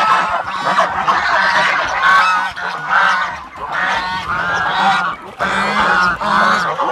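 A flock of white domestic geese honking noisily, many calls overlapping one after another as they crowd around for food.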